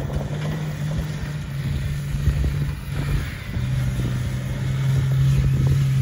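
Off-road 4x4 engine running steadily as it drives over a rough dirt track and grassy ground, a low hum with small knocks and rattles, growing a little louder toward the end.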